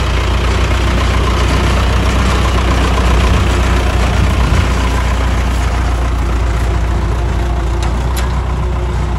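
Sonalika 60 tractor's diesel engine running steadily under load, pulling a disc attachment that cuts through the soil.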